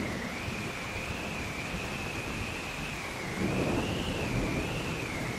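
Heavy rain hissing steadily with low rolling thunder; the rumble swells about three and a half seconds in.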